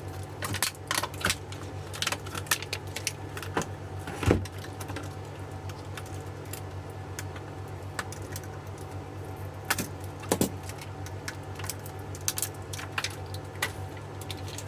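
Heat-shrink plastic wrap being cut and peeled off a lithium-ion e-bike battery pack: irregular crackles, snips and clicks, with a heavier knock about four seconds in, over a steady low hum.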